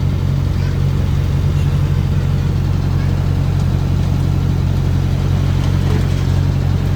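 An engine running steadily at idle, a deep, even hum.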